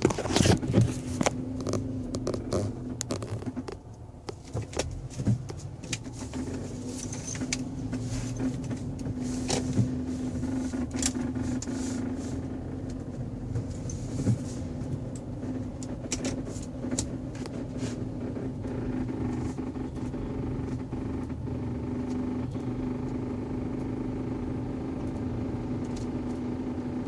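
A 2011 Hyundai Sonata 2.0 Turbo's turbocharged four-cylinder engine bay with a steady hum that fades for a few seconds early on and then returns, over scattered clicks. This is the strange intermittent noise that comes with the A/C fan on and stops when it is shut off, and seems to come from the passenger side of the engine.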